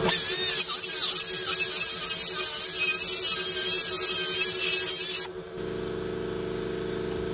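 Pneumatic die grinder grinding out a hole in the Jeep's steel cage bar, a loud high-pitched grind that stops about five seconds in. A steadier, quieter machine hum follows.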